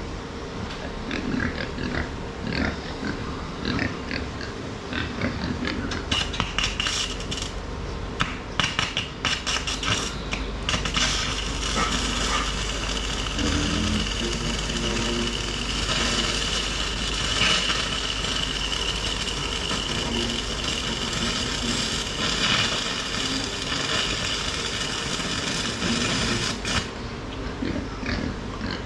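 Electric arc welding crackling and hissing steadily for about twenty seconds, starting and stopping abruptly, with pigs grunting close by throughout.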